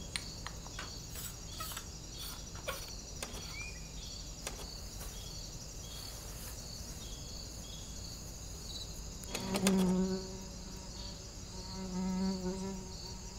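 Insects chirping in a steady, evenly pulsing high-pitched trill, with a few light clicks in the first half and two short low tones near the end.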